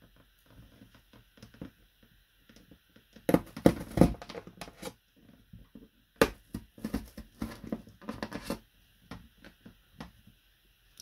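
Cardboard being punched through by hand, with crunching and tearing and a few sharp knocks, the loudest cluster about three to four seconds in, along with the rattle of a plastic socket unit being handled.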